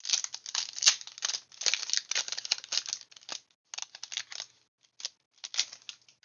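Foil Pokémon TCG booster pack wrapper being torn open and crinkled, in irregular bursts of rustling with a few sharp snaps and short pauses.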